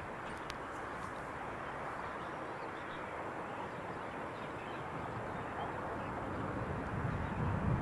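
Steady outdoor background noise with a few faint bird chirps, and a low rumble that builds near the end.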